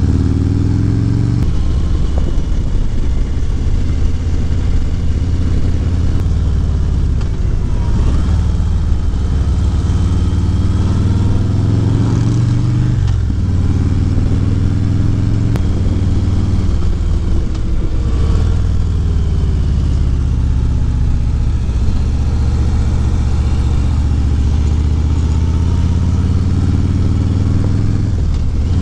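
Harley-Davidson Road Glide Special's V-twin engine running at road speed, heard from on the bike while riding. The pitch drops and climbs back again several times as the engine speed changes.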